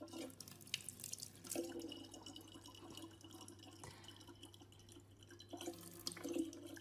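Thin stream of tap water trickling from a faucet into a plastic water bottle, with faint dripping and splashing.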